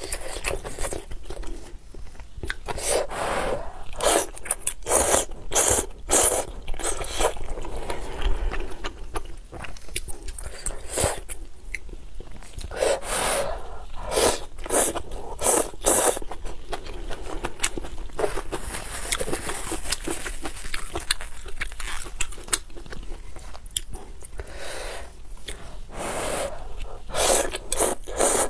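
Close-miked eating of rice noodles in spicy soup: repeated slurps of noodles drawn in with chopsticks, with wet chewing between them, and a longer drawn-out slurp a little past the middle.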